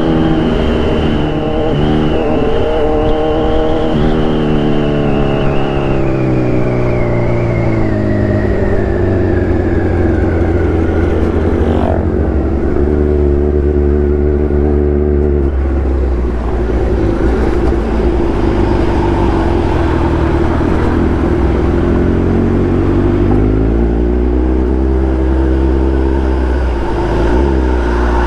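Kawasaki Z1000's inline-four engine running under way. Its revs fall steadily over the first dozen seconds, hold fairly steady through the middle, then dip and rise again near the end.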